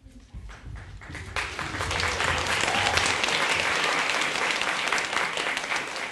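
Audience applauding, the clapping building up over the first second or so, then thinning out near the end.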